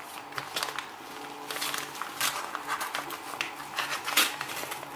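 A knife slitting open a white postal mailer bag, with the bag rustling and crinkling in irregular scrapes and crackles as it is cut and handled.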